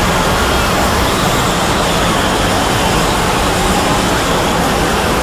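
Dozens of video soundtracks playing at once, blending into a loud, steady wash of noise in which no single voice or tune stands out.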